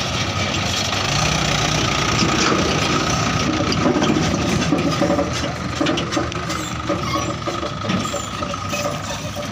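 Heavy diesel machinery engine running steadily under work, with scattered short knocks and clicks over it.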